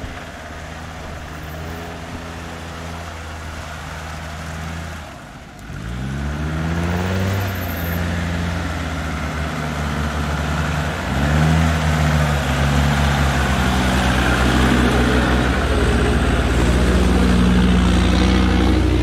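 Lifted off-road 4x4's engine revving as it drives through mud. The pitch rises in surges about six and eleven seconds in, and the engine gets louder as the truck comes up close near the end.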